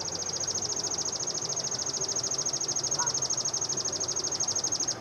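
An insect calling: a steady, high-pitched, rapidly pulsing trill that stops abruptly near the end.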